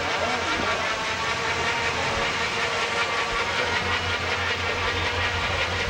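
Engine of a black late-1930s hot rod sedan running as the car rolls slowly past, a steady low exhaust rumble over a constant hiss.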